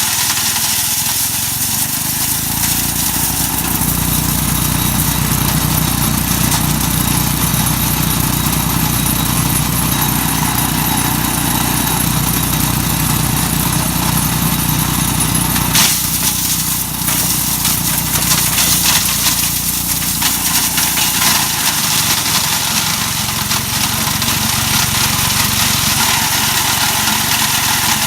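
Mighty Mac wood chipper running steadily, its engine and chipping mechanism grinding walnuts. One sharp knock stands out about halfway through.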